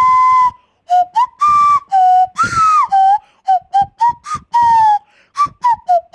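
A rosewood nose flute (mookku kuzhal) blown through the nose, with the open mouth shaping the pitch, playing a tune. It sounds as a clear, breathy whistle in separate notes that jump up and down in pitch. One note near the middle bends up and back down, and the notes come shorter and quicker in the second half.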